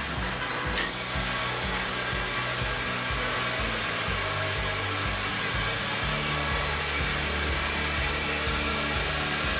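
Log band saw cutting a softwood log into planks: a steady hissing cut that starts about a second in, over background music with a beat.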